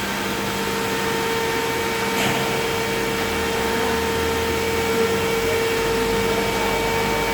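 Computer beam saw for wood panels running, a steady machine hum with a constant whine, a short hiss about two seconds in, and a low rumble joining in the second half.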